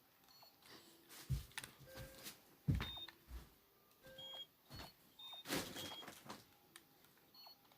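Toy phone being pressed: faint short electronic beeps at different pitches among plastic clicks and handling noise.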